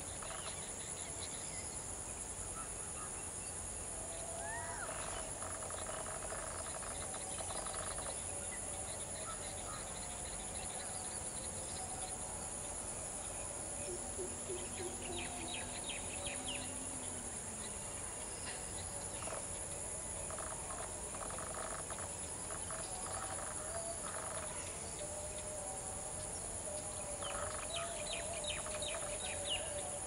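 Steady high-pitched insect chorus, with various birds chirping and calling on and off, including short rapid trills near the middle and again near the end.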